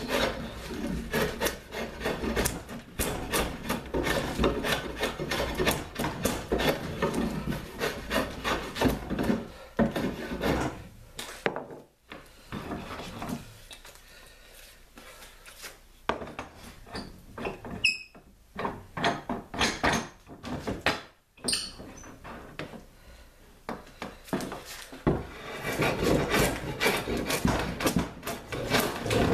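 Drawknife shaving bark and wood off a branch taken for cherry, in quick repeated scraping strokes. The strokes stop for a stretch in the middle, broken by a few clicks and knocks, then start again near the end.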